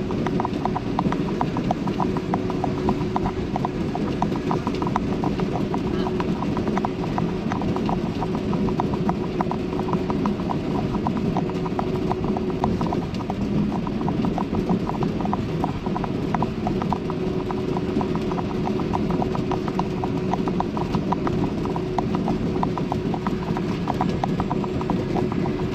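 Steady drone of a moving vehicle heard from inside the cab, with a fast, irregular rattle of clicks and a faint steady hum that drops out partway through.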